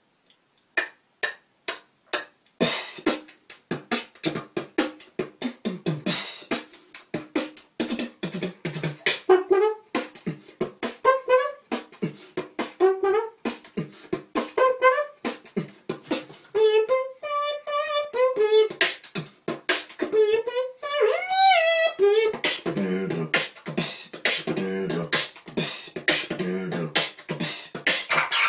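Human beatboxing: a few separate mouth-made kick and snare hits, then a fast continuous beat. In the middle, a hummed melody with wobbling, bending pitch runs over the beat.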